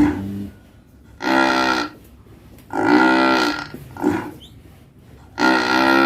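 A large cow snoring in its sleep: three drawn-out, droning snores of steady pitch about two seconds apart, with a shorter, fainter breath between the second and third.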